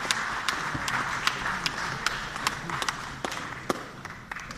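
Audience applauding, with several sharp single claps standing out close by; the applause dies away near the end.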